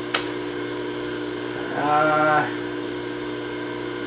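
Steady electric hum of the freshly repaired Bridgeport milling machine's three-phase motor. A sharp click comes just after the start. About two seconds in, a short pitched tone lasting about half a second is the loudest sound.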